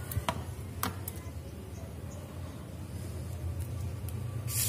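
Plastic basket-weaving wire being handled: a couple of light clicks in the first second, then a hissing rustle near the end as the wire is drawn through, over a steady low hum.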